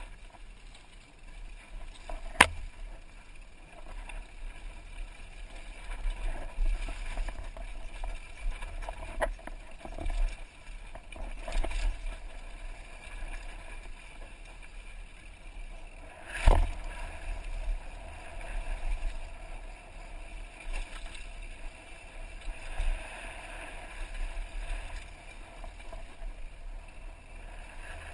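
Downhill mountain bike ridden fast over a rocky dirt trail: a steady rumble of tyres on dirt and stones, with rattling and wind buffeting the helmet camera's microphone. Two loud, sharp knocks of the bike striking rocks or landing come about two seconds in and again about sixteen seconds in, with smaller knocks in between.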